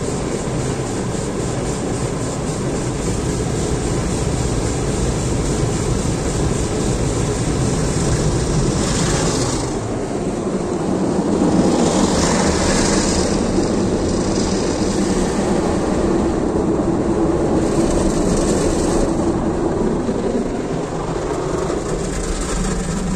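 Automatic gantry car wash heard from inside the car: the wash machine runs steadily while water sprays and rotating brushes swish over the body, muffled by the cabin. The sound grows louder several times as the brushes and spray sweep past.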